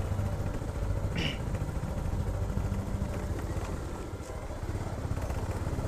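Motorcycle engine running steadily at low speed on a rough dirt forest track, heard from the bike. A short high chirp sounds about a second in.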